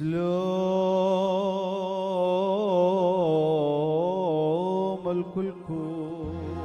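A solo male voice chanting a long, wavering melismatic phrase in the Syriac liturgical style as the Gospel reading begins. It breaks off about five seconds in into a short intoned word, "Shlomo" (peace), and a low steady tone comes in near the end.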